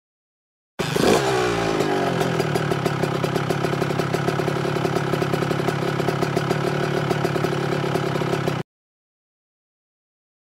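Dirt-bike engine starting with a quick rev about a second in, then running steadily with a fast, even pulse before cutting off abruptly near the end.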